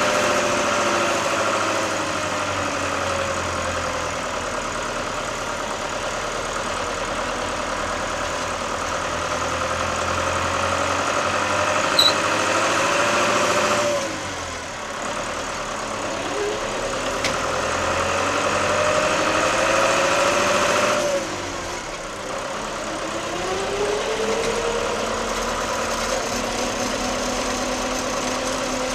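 Case 885XL tractor's diesel engine running while the tractor drives along, its note rising and falling with the throttle. It drops off suddenly twice, about halfway through and again about two-thirds through, and climbs again each time. There is a single short clank about twelve seconds in.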